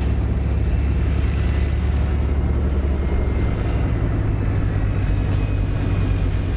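Leopard 1 main battle tank driving, its V10 multi-fuel diesel engine giving a steady, heavy low rumble over the tracks, with a faint high whine above it.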